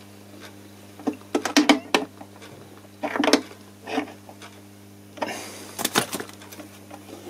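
Metal clicks and clinks of an adjustable wrench working the nut of a guitar volume potentiometer, tightening it down onto the top of a semi-acoustic guitar, in several short clusters. Near the end a longer clatter as the wrench is set down on the workbench. A steady low hum lies underneath.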